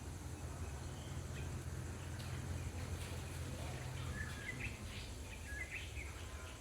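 Outdoor ambience with a steady high insect drone and a low rumble, and a few short, quick chirps about four to six seconds in.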